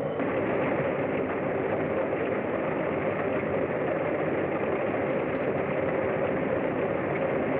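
Steady engine noise from a vehicle, running evenly and cutting off abruptly at the end.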